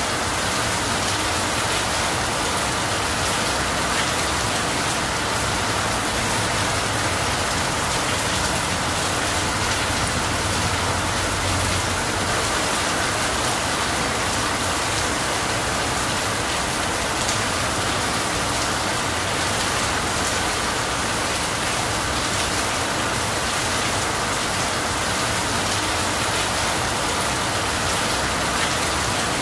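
Steady rain falling on tree leaves and a roof, with water running off the roof edge.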